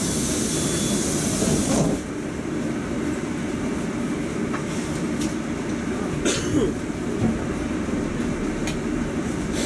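Moscow Metro 81-760 Oka train heard from inside the car, running between stations with a steady low rumble. A high hiss cuts off about two seconds in, and a few short clicks sound later.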